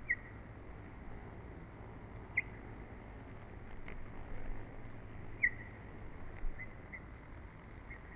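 Honeybees humming faintly at the hive entrance, with about six short, high chirps scattered through.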